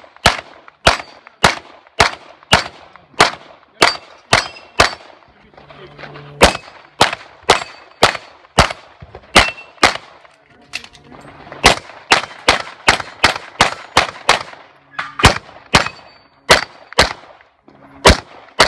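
Rapid pistol fire in strings, the shots about a third to half a second apart, with short breaks about 6 and 11 seconds in. A brief metallic ring follows some shots: steel targets being hit.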